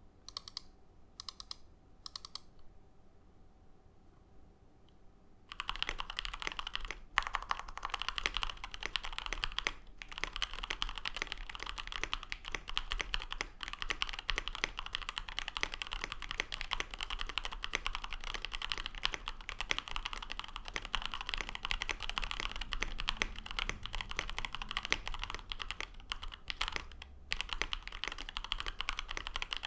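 Typing on a KBDFans KBD67 Lite R2 mechanical keyboard with lubed Lavender linear switches on a polycarbonate plate and JTK Zen keycaps. A few single keystrokes come in the first couple of seconds, then after a pause steady fast typing starts about five seconds in, with a short break near the end.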